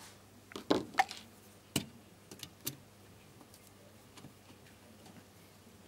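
Sharp clicks and knocks of a screwdriver and wire being handled at the screw terminals of contactors on a DIN rail: a quick cluster in the first three seconds, the loudest around one second in, then only faint ticks.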